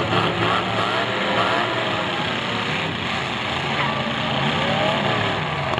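Several full-size demolition derby cars' engines running and revving together in a dense, steady din, with engine pitch rising and falling.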